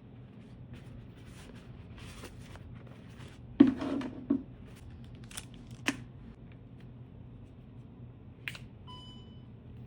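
Unboxing handling sounds of packaging and a phone gimbal: light rustling and clicks, a louder clunk about three and a half seconds in, a couple of sharp clicks, and a short electronic beep near the end.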